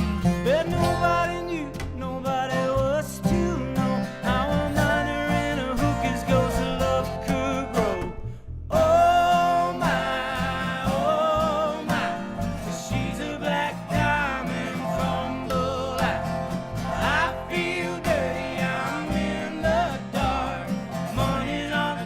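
Acoustic country-bluegrass band playing an instrumental break live, guitar under a wavering, gliding lead melody line. The sound cuts out for a moment about eight seconds in.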